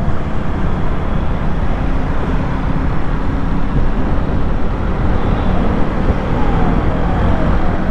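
KTM Duke 250's single-cylinder engine running while riding in traffic, buried under heavy wind noise on the helmet-mounted microphone. Near the end a short falling tone repeats several times.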